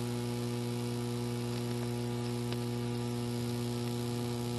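Steady electrical mains hum with a stack of overtones, in the sound of an old broadcast videotape transfer.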